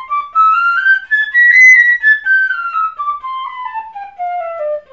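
Pífano (Brazilian fife) in C playing a fast scale run, four notes to a beat with the first of each group tongued and the other three slurred. The notes climb about two octaves to a high peak about a second and a half in, then step back down to where they started.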